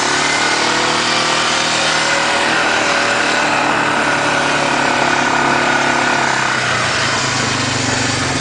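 2006 Suzuki Eiger 400 ATV's single-cylinder four-stroke engine running steadily as the quad rides across grass pasture, easing off to a lower note about seven seconds in as it slows.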